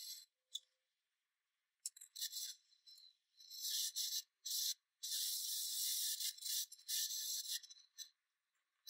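Irregular rubbing or scraping strokes on a hard surface: short bursts with silent gaps, then a longer stretch of about three seconds near the end.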